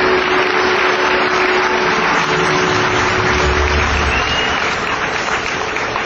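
Stadium audience applauding, a steady even roar of clapping, with a single held note sounding under it until about four seconds in.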